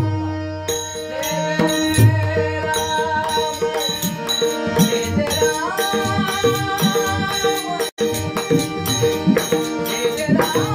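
Devotional bhajan music: a singer holds long notes that glide from pitch to pitch over a steady drone, with pakhwaj (mridang) drum strokes throughout. The sound drops out for an instant about eight seconds in.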